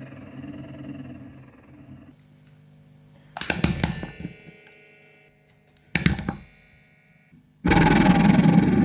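Magnets of a coupled magnetic pendulum buzzing and rattling against each other. The buzz cuts off about two seconds in. Two sharp clattering strikes follow, about three and a half and six seconds in, with a faint ringing between them, and a loud buzzing rattle starts abruptly near the end.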